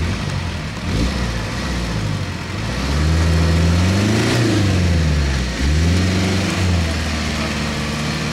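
Off-road 4x4's engine revving as it drives through wet, grassy ground. The revs climb and fall a few seconds in, then rise briefly once more.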